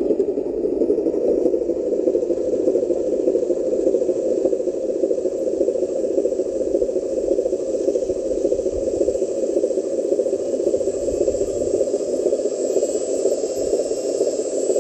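A loaded RC dump truck is driving over sand and loose gravel. Its motor and drivetrain give a steady rattling run, and a faint high whine joins near the end.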